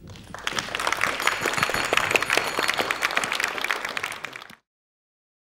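Audience applauding at the end of a talk, building over the first half second and then cut off suddenly about four and a half seconds in.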